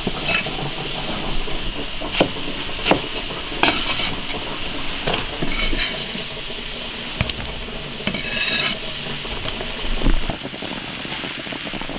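A cleaver knocking now and then on a wooden chopping block as potatoes are cut into strips, with a couple of short scrapes of the blade, over a steady hiss of water boiling in a wok.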